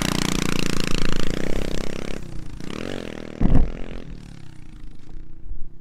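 Small pit bike engine revving as it pulls away, its pitch rising and falling, then fading as the bike rides off into the distance. A short loud low thump about three and a half seconds in.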